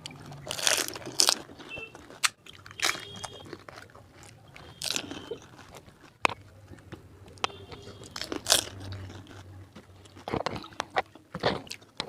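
Crisp fuchka (pani puri) shells being bitten and crunched in the mouth, with chewing between irregular loud crunches.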